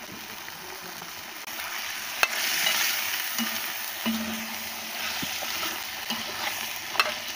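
Goat meat sizzling as it fries in a clay wok over a fire. The sizzle grows louder about a second and a half in, with a couple of sharp clicks.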